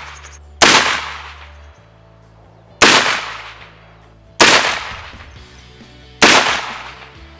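Uberti 1862 Police .36-calibre cap-and-ball revolver firing four black-powder shots, roughly two seconds apart, each a sharp report with a ringing tail that dies away over about a second. Quiet background music with a steady low tone runs underneath.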